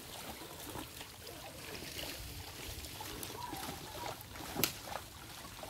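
Muddy creek water sloshing and splashing as people wade through it with hand nets, with a sharp knock about four and a half seconds in.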